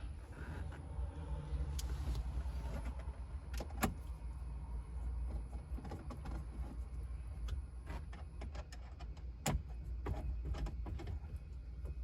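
Handling noises of a car stereo head unit being held in the plastic dash while its mounting screws are fastened: scattered sharp clicks and light rustling, over a low steady rumble.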